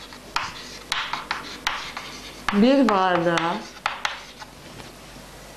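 Chalk writing on a chalkboard: quick taps and scratches of chalk strokes, several a second. About halfway through, a voice draws out a word, and fainter strokes follow.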